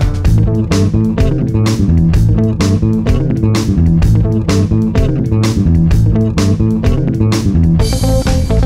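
Music with bass guitar and guitar over a steady beat.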